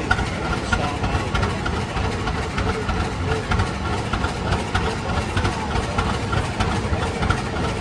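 Rumely OilPull S 30-60 tractor's kerosene-burning two-cylinder engine running steadily with a fast low pulse, driving a sawmill by belt.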